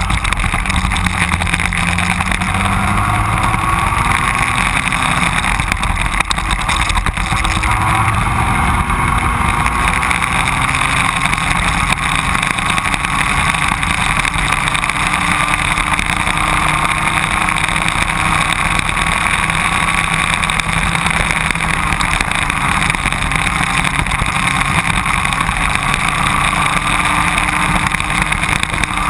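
Racing go-kart engine running hard, heard from on board the kart, steady and loud with its pitch wavering a little as the kart speeds up and slows through the corners.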